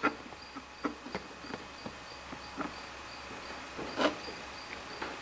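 Light clicks and knocks of metal grinder parts being handled and fitted together as the greased gear set is test-fitted into the Makita angle grinder's gear housing, with a louder knock about four seconds in. A faint high-pitched pulsing tone repeats steadily underneath.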